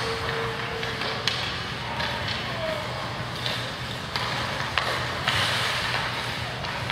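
Youth ice hockey play: sharp clacks of sticks on the puck and boards every second or so, over a steady hiss of skates on the ice and the hum of the rink hall.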